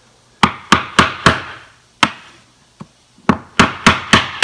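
Sharp knocks on a wooden door frame as the last rail is tapped down onto the stiles and panel of a shaker door, seating its tight tongue-and-groove joints. A quick run of four knocks, a single one, then another quick run near the end.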